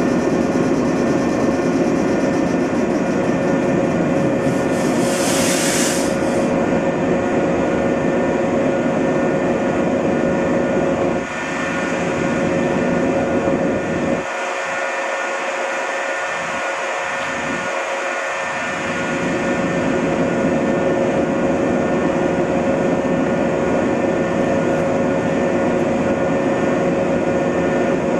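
Electric multiple-unit trains standing at a station platform, their onboard equipment running with a steady hum and several held tones. About five seconds in comes a burst of compressed-air hiss lasting about a second and a half. The low rumble drops away for a few seconds in the middle.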